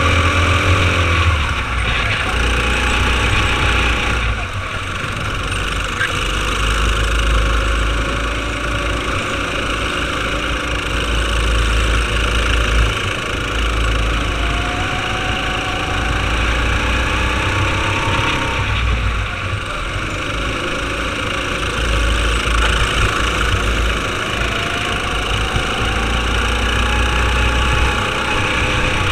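Racing kart engine heard from the driver's seat at race pace. Its pitch drops as the driver lifts off for corners about four seconds in and again near twenty seconds, and rises as the kart accelerates out.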